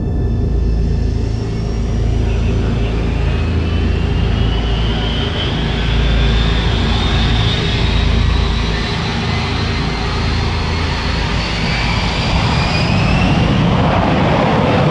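Thrust SSC's twin Rolls-Royce Spey turbofan jet engines running, with a high whine rising slowly in pitch over a deep rumble as they spool up and the car rolls down the runway. A broad rushing noise builds near the end.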